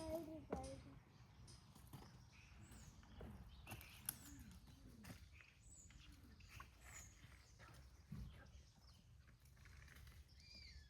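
Faint farmyard ambience: a few soft, low chicken clucks and scattered small-bird chirps, with occasional light clicks.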